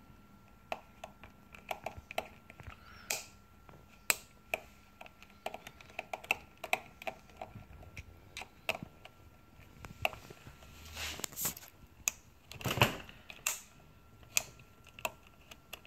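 Small precision screwdriver clicking and tapping on the metal screws and plate of a Canon 5D Mark III's hot shoe, in irregular light clicks, with a louder, longer scrape about three-quarters of the way through.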